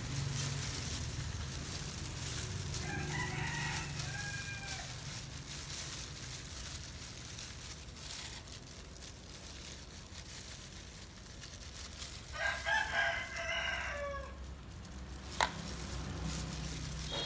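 A rooster crowing twice, a fainter crow about three seconds in and a louder one, with a falling end, about twelve seconds in, over the soft wet squish of gloved hands working dye paste into hair. A single sharp click near the end.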